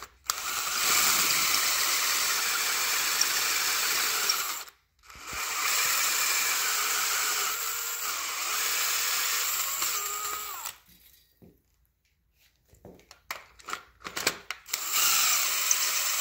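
DeWalt 20V MAX XR cordless drill running a long bit deep into a head bolt hole in an aluminum LS engine block, drilling it out for a thread repair. It runs for about four seconds, stops briefly, runs about five seconds more, then pauses for a few seconds with a few light clicks before starting again near the end.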